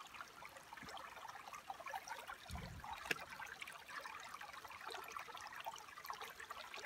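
Faint trickle of a shallow stream running over stones, a steady fine babble. A low thump about two and a half seconds in and a sharp click just after.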